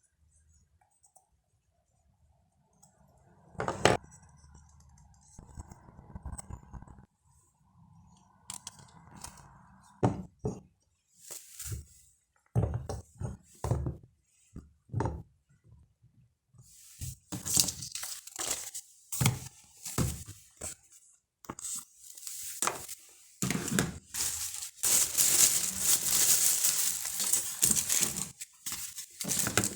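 Packaging being handled and unwrapped: a knock, then scattered clicks and short scrapes, turning into sustained crinkling and tearing of wrapping in the second half.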